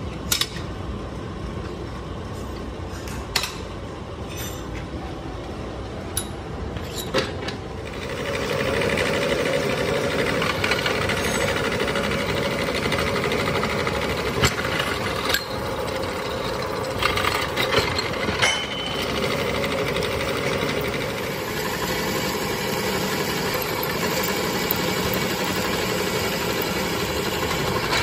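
Pillar drill press running. There are a few sharp metallic clicks at first as a wrench tightens the clamp on a truck wheel hub. About eight seconds in the twist drill starts cutting into the hub's metal flange, and the steady cutting noise gets louder and stays loud, with a couple of brief dips.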